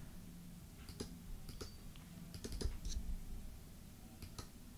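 Faint, irregular clicks of a computer keyboard and mouse, about a dozen short taps bunched in the middle of the stretch.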